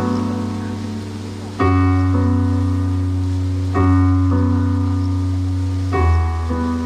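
Piano playing slow, held chords, a new chord struck about every two seconds and left to ring, as the introduction to a song.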